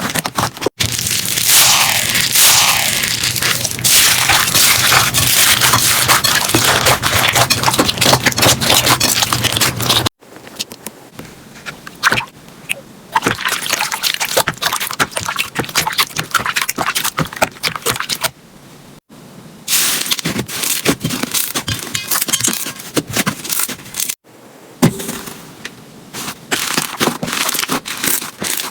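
Slime being squeezed and pressed by hand, making dense crackling and clicking pops, loudest in the first third, across several short clips with sudden cuts between them.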